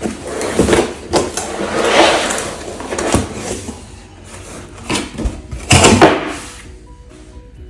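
Packaging being opened and handled: rustling and scraping in long swells, with several knocks and the loudest scrape around six seconds in.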